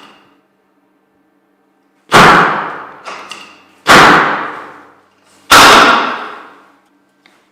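Three loud, sharp thuds about one and a half to two seconds apart, each dying away over about a second: chiropractic adjustment thrusts.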